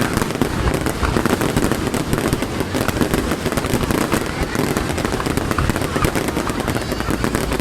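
Fireworks display: a dense, unbroken run of crackling and popping bursts, many overlapping, with voices of onlookers mixed in.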